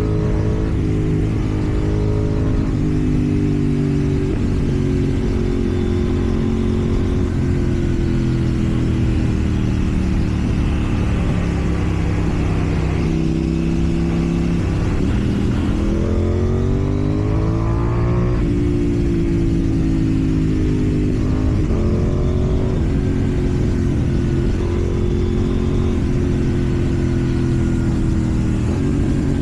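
KTM Duke 790's parallel-twin engine running through an aftermarket slip-on exhaust under way, mostly at a steady pitch. About sixteen seconds in it revs up in a rising glide, then settles again.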